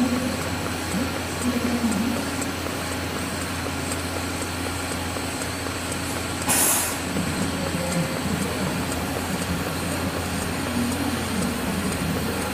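Steady low mechanical hum with a wavering drone, broken by one short burst of hiss about six and a half seconds in.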